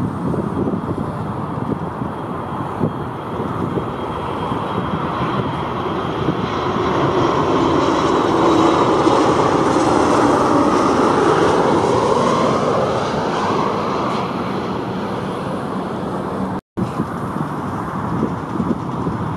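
Jet noise from a narrow-body airliner passing: a broad rush that swells to its loudest about halfway through, with a tone sweeping down and back up, then eases off. The sound cuts out for an instant near the end.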